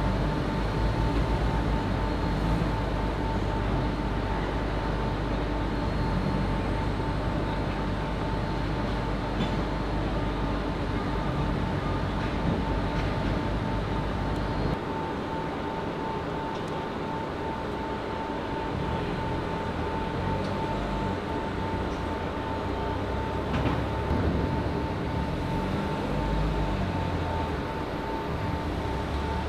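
Heavy machinery running steadily, with a constant high hum over a low engine rumble that shifts about halfway through.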